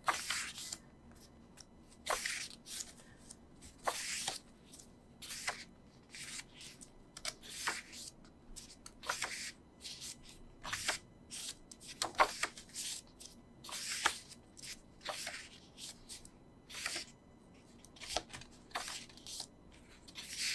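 Pages of a glossy album photo book being turned one after another, each turn a short papery swish, about one every second or two.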